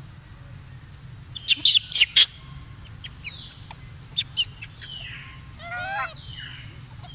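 High-pitched animal squeaks and chirps: two quick runs of four sharp squeaks, then a wavering, rising squeal about six seconds in, with short falling chirps between them.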